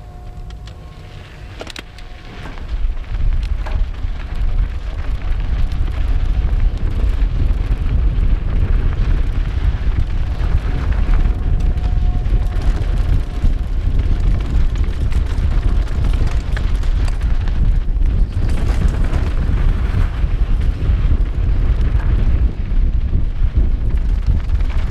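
Heavy wind rumble on a helmet-mounted GoPro HERO4 microphone as a downhill mountain bike rolls out and gathers speed down a loose dirt trail. It swells about two to three seconds in and stays loud after that.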